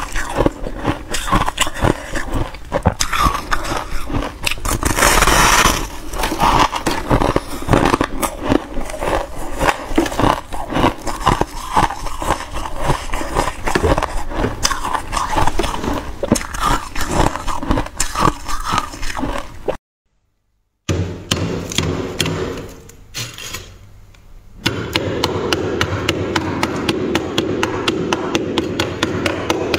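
Close-up crunching of frosty, snow-like ice being bitten and chewed, full of crisp cracks. After a sudden one-second gap, built-up freezer frost is scraped, and from about five seconds later the scraping runs as a fast, even series of strokes.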